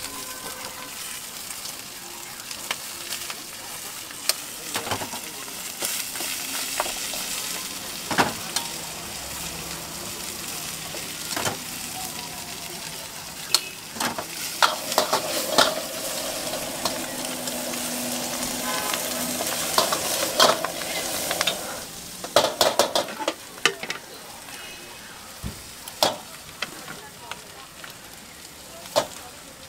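Leafy greens sizzling in a hot steel wok over a gas burner, with a metal wok ladle scraping and clanking against the wok as they are stirred. The sizzle drops away about two-thirds through, leaving scattered sharp clanks of the ladle.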